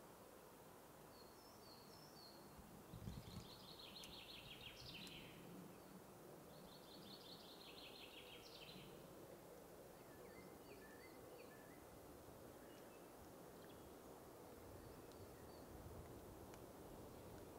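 Faint woodland birdsong. A songbird sings two fast trilled phrases a few seconds apart, and other birds give short scattered chirps over a low, steady outdoor hush. A brief low thump comes about three seconds in.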